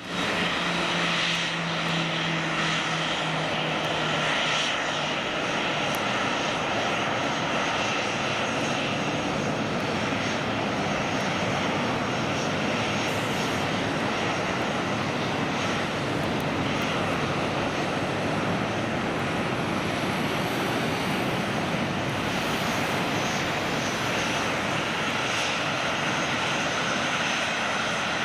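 Boeing 737-800's CFM56 jet engines running, a steady loud rush of engine noise with a faint high whine. A low hum shows in the first few seconds.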